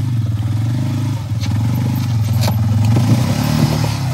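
ATV engine running steadily under light throttle while riding a dirt trail, with a few sharp clatters over the rough ground.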